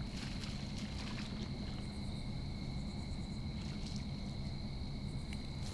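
Insects trilling: one steady high-pitched tone with a fainter, higher overtone, unbroken throughout, over a low background rumble.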